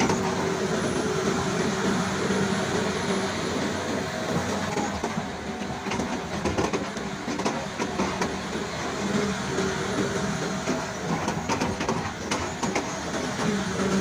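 Excavator's diesel engine running steadily, with metallic clanks and rattles over it, more frequent in the second half.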